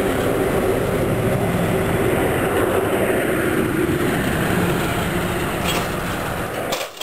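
Jet flyover sound: a loud, steady rushing noise with a droning tone under it, which cuts off suddenly near the end.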